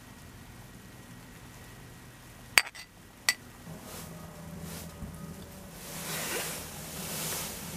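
Two sharp clinks of metal tableware, under a second apart, each with a brief ring. A soft rushing noise swells near the end.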